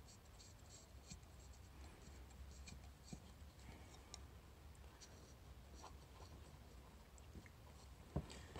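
Faint scratching and light clicks of a Breville BES860 espresso machine's solenoid valve parts being screwed back together by hand, with a single light knock near the end.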